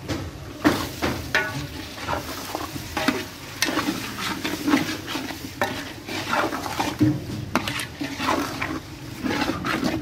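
A metal ladle stirring meat through a frying onion-tomato masala in a large aluminium pot, with irregular scrapes and knocks of the ladle against the pot over a frying sizzle.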